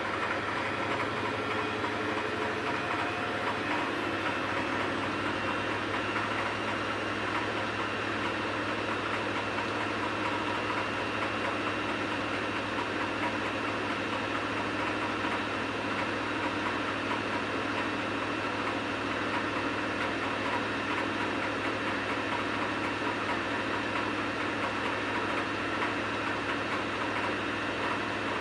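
Washing machine running with a load of wet towels: a steady motor hum under the constant noise of the turning drum.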